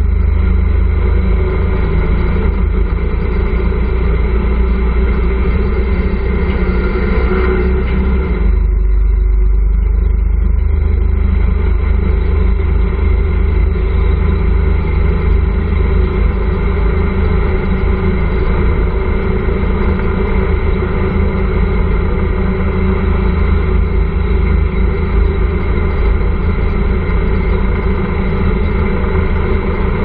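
Motorcycle engine of a tricycle running steadily under way, with a heavy low rumble. The sound shifts about eight seconds in, its higher part dropping away while the low rumble grows.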